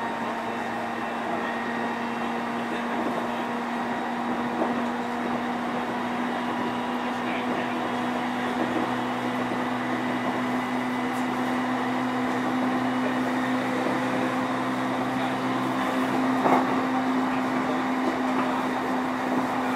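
Interior running noise of a JR East E531-series electric train at speed, heard in motor car MoHa E530: a steady rumble of wheels on rail under a constant motor hum that creeps slightly higher in pitch, with a single brief knock about three-quarters of the way through.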